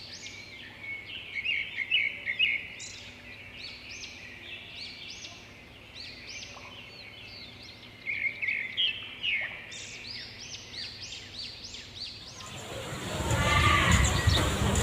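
Small birds chirping and twittering in quick runs of short, high notes over a faint background. About twelve seconds in, a louder, dense wash of noise comes in and builds.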